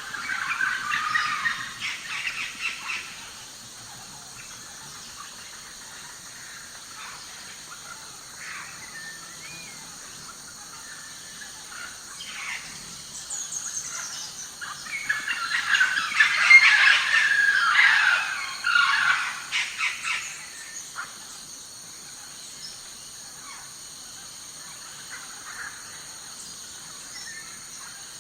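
Library sound effect of wild animal calls: shrill squeals and chattering calls in the first few seconds, then a louder, busier bout of squealing calls from about halfway, over a faint steady high-pitched background.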